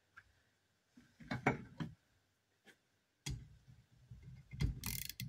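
Light metal clicks and knocks as an old tractor starter motor is handled and a socket wrench is set on one of its bolts, growing into a denser clatter of handling from about three seconds in.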